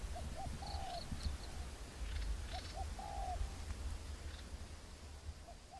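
A dove cooing: a low phrase of two short notes and one longer note, repeated about every two and a half seconds, with faint high chirps of a small bird.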